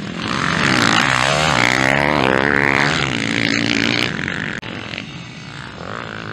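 Motocross bike engine revving hard as it passes close by, pitch climbing and falling for about four seconds. Then the sound drops off suddenly to a quieter, more distant motorcycle engine.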